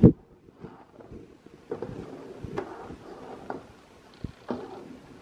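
Salsa boiling in a pot on the stove, bubbling with irregular soft pops. A single kitchen-utensil knock right at the start.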